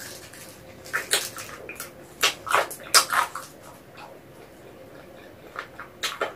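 Close-up wet mouth sounds of a person eating sauce-coated chicken feet: sticky chewing, sucking and lip-smacking clicks in short clusters, with a quieter pause in the middle.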